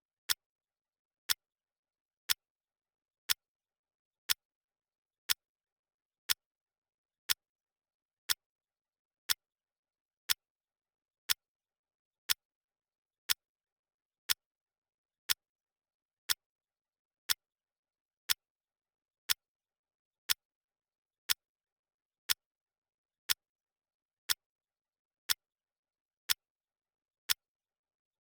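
Clock ticking sound effect: one sharp tick each second, evenly spaced, with silence between ticks.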